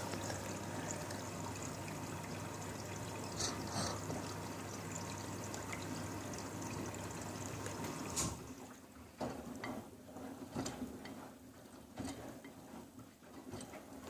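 Water running through a Miele W3623 washing machine, with a steady low hum, cutting off about eight seconds in; scattered faint clicks and ticks follow.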